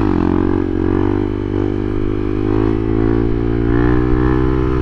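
Motorcycle engine running at a steady, nearly constant speed while riding, as heard from a camera mounted on the bike or helmet.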